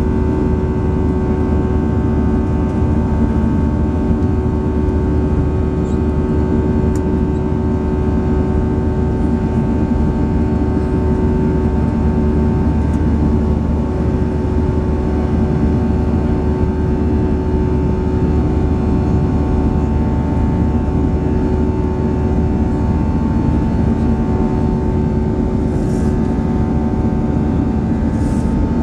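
Cabin noise of an Airbus A320-214 in its climb after takeoff, heard from a window seat over the wing: the CFM56-5B engines running at steady climb power, a loud, even rumble with several steady humming tones over it.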